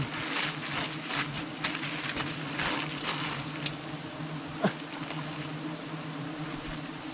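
A swarm of giant honeybees buzzing around an opened nest, a steady low drone. Short rustling scrapes fill the first few seconds, and a single sharp tick comes about halfway through.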